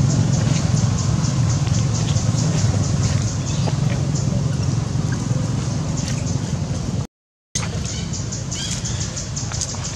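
Steady low rumble of motor traffic with a rapid, even high ticking over it. The sound drops out completely for about half a second a little after seven seconds in.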